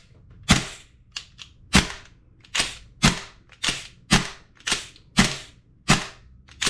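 Tokyo Marui MWS gas blowback airsoft rifle, with a Modify-Tech two-stage trigger box and a stock TM bolt carrier with a CGS nozzle, firing about ten semi-automatic shots at roughly two a second. Each shot is a sharp pop with the bolt cycling.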